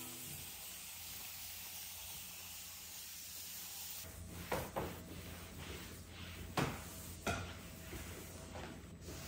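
Household handling sounds: a soft, steady hiss, then, from about halfway through, several sharp knocks and clacks of things being set down or doors being shut.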